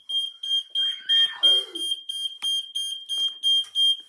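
Smoke alarm sounding on its test button: a loud, high-pitched piezo beep repeating rapidly, about three beeps a second.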